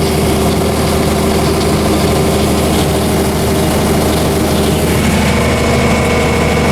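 Heavy harvest machinery engine running steadily under load, a constant drone. About five seconds in a higher steady whine joins it.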